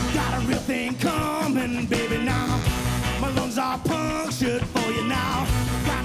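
Nine-piece funk and soul band playing live, its horn section of trumpet, saxophones and trombone blowing short repeated riffs over bass, guitar and drums.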